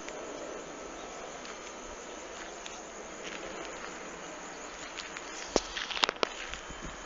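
Outdoor field ambience with insects chirping and buzzing steadily, and a few sharp clicks or knocks about five and a half to six seconds in; no cow is mooing.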